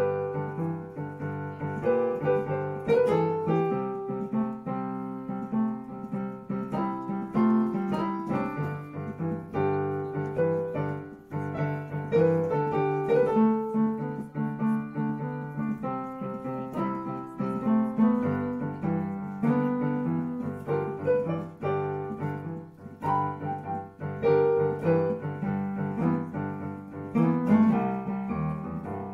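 Instrumental background music with a steady flow of notes.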